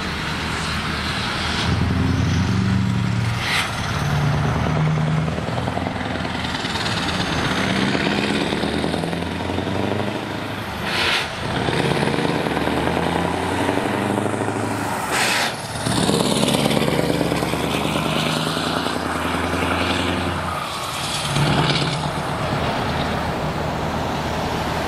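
Scania S650's 16-litre V8 diesel running through an open-pipe exhaust as the truck pulls away and accelerates, loud throughout. The engine note breaks off briefly about three times, at the gear changes.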